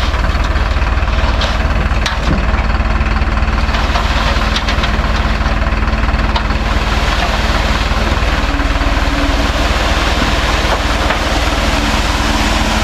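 Sand truck's engine running steadily.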